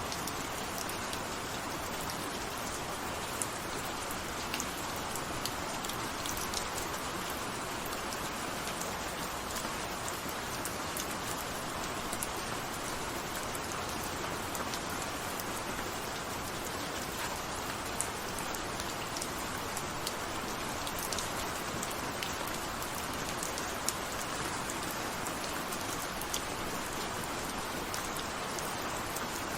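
Steady rain falling, an even hiss with scattered sharper ticks of single drops striking a surface.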